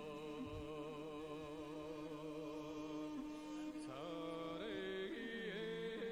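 Drawn-out chanting by a single voice, holding long notes with a wavering vibrato and changing pitch about four seconds in. It is typical of the traditional chanted calling of wrestlers' titles at Mongolian wrestling.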